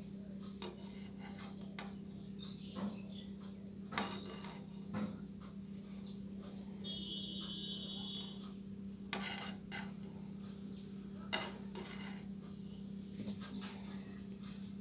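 Scattered light clicks and taps from small electronic parts being handled and soldered, over a steady low hum, with a brief high-pitched tone about halfway through.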